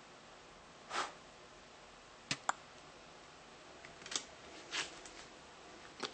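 Faint handling sounds: a few light metallic clicks as metal ball-chain bracelets are handled and set down on a wooden table, with two soft whooshes.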